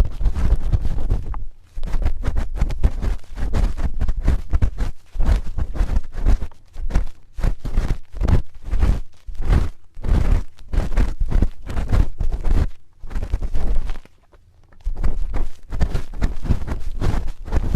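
Spoon rubbing and scraping against a microphone ear in close-up ASMR ear cleaning: a rapid, uneven run of scrapes and thuds, with brief pauses about a second and a half in and around fourteen seconds in.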